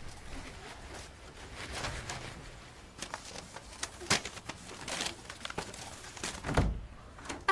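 Light rustling and small knocks of things being handled, with a dull thump near the end.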